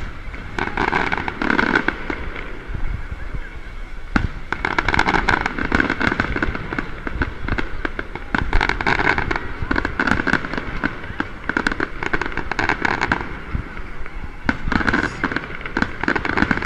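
Aerial fireworks bursting overhead: dense clusters of sharp cracks and crackling pops, coming every second or two.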